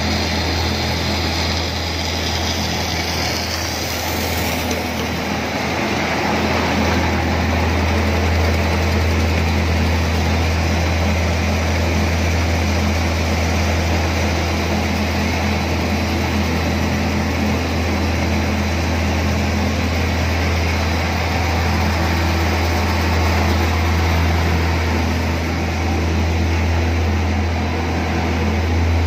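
Machinery of a core-filled puffed snack extrusion line running: a steady mechanical drone with a strong low hum underneath.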